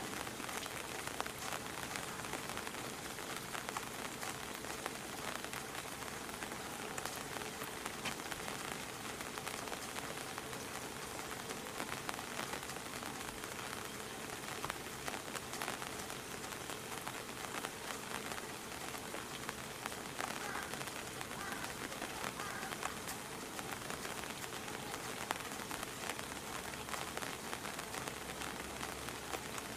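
Steady rain falling, a constant hiss dotted with many small drop ticks.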